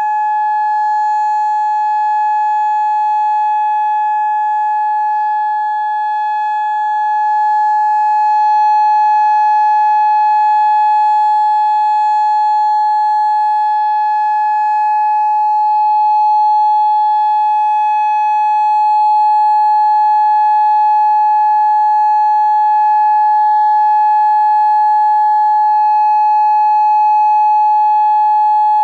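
Federal Signal Modulator 6024B electronic outdoor warning siren sounding its steady alert signal: one loud, unwavering tone with overtones, growing slightly louder about eight seconds in.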